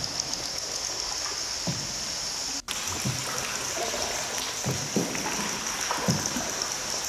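Water trickling and dripping inside a cave, with a few soft low knocks and a steady high hiss throughout; the sound cuts out for an instant partway through.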